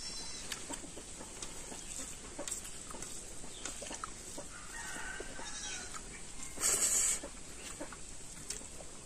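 Domestic chickens clucking in the background, with light scattered clicks and one short loud burst of hissing noise about seven seconds in.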